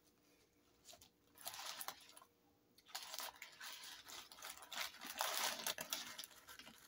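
Faint rustling and crinkling of a paper burger wrapper being handled, in several short spells, most of it in the second half.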